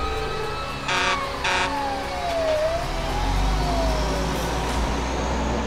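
Fire engine sound effect: the engine rumbles steadily, two short horn blasts come about a second in, and a siren tone slowly winds down in pitch, rises briefly and falls again.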